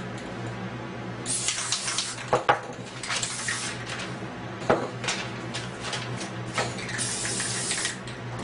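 Aerosol spray paint can hissing in short bursts of about a second each, three of them. Two sharp knocks fall between the bursts.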